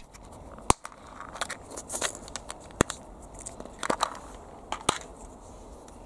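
Small plastic storage box being opened and a plastic capsule picked out of it: a few sharp plastic clicks and snaps, the loudest about three-quarters of a second in, with light crackling of the capsules being handled in between.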